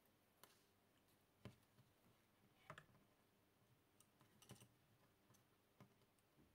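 Near silence with a scattering of faint, irregular clicks and taps: hands handling a soldering iron, solder wire and a small circuit board on a desk.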